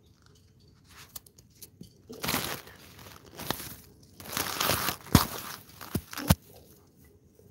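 Rustling and crunching of dry grass and leaves in irregular bursts, with a few sharp knocks near the end.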